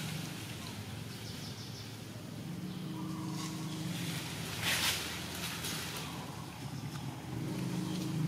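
A steady low motor hum that grows a little louder after the first few seconds, with a brief scratchy rustle a little before halfway through.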